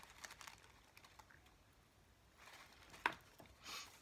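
Faint small clicks and rattles as a small glass bottle of sequins is handled, with a sharper tap about three seconds in and a short soft rustle just after.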